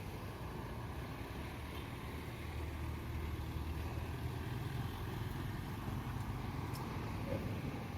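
A road vehicle's engine running with a steady low rumble.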